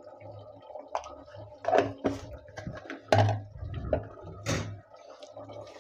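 Chicken curry simmering in an open pressure-cooker pot: a handful of soft plops and light knocks over a faint steady hum.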